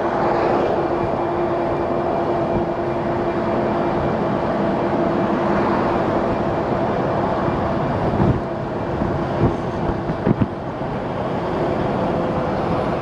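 Steady wind and road noise from riding a Lectric step-through e-bike, with a steady hum that changes pitch near the end, and a few knocks about eight to ten seconds in.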